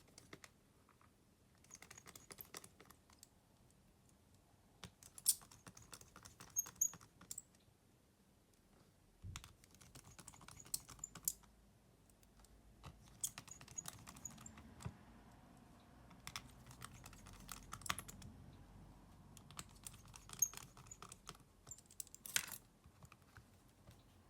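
Light clicking and tapping of a smartphone's small plastic and metal parts and repair tools being handled, in scattered clusters with a few sharper ticks, faint overall.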